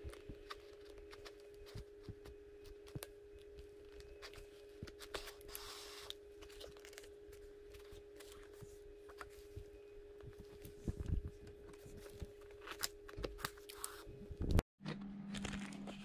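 Hand work on a motorcycle seat cover: scattered small clicks, scrapes and rustles of material being handled, cut and pulled, over a steady hum. Near the end the sound drops out briefly and a lower hum takes over.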